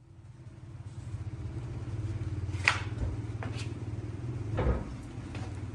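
A workshop machine motor hums steadily with a fine rapid pulse, fading in at the start. A few knocks and a heavier thud near the end come from a large log being carried and handled.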